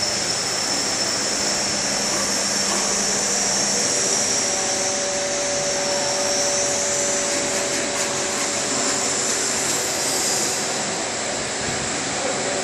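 Steady hiss and whir of factory machinery, with a strong high hiss throughout; a low hum drops out about four seconds in, and a faint steady tone sounds from about four to nine seconds.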